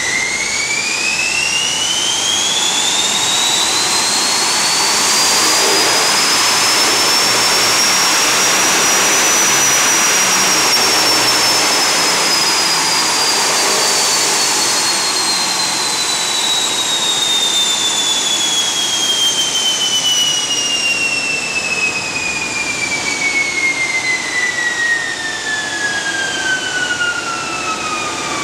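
Power run of a VW Tiguan on a Dynocom AWD 5000 all-wheel-drive chassis dyno: a high whine from the spinning tyres and dyno rollers rises smoothly in pitch to a peak about nine or ten seconds in, then falls slowly as the car runs down, over a steady noisy engine and drivetrain sound.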